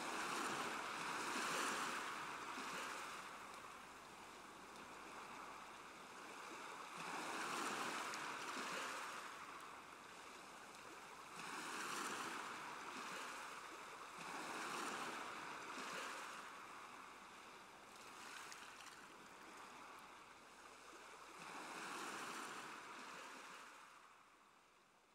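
Ocean surf washing in slow swells, a rushing hiss that rises and falls every few seconds and fades away near the end.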